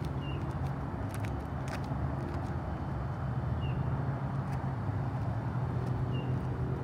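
A steady low motor hum, with a short high bird chirp heard three times and a few light footsteps on asphalt.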